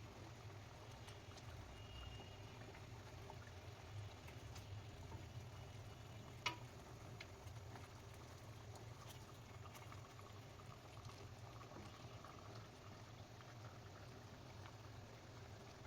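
Faint kitchen sound of food cooking: a steady low hum under light crackling, with a few small clicks and one sharper click about six and a half seconds in.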